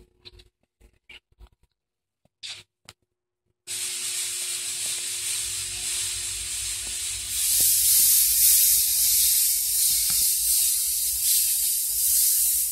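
A few faint rustles and clicks, then a steady hiss that starts abruptly about four seconds in and grows louder and brighter about seven seconds in, with a faint steady tone beneath it.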